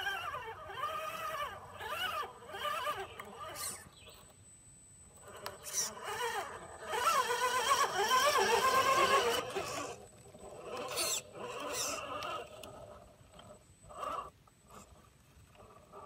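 Electric motor and gear drivetrain of an RC4WD Trailfinder 2 scale rock crawler whining, the pitch rising and falling with the throttle as it crawls over rocks. It is loudest about seven to nine seconds in, as the truck passes close by.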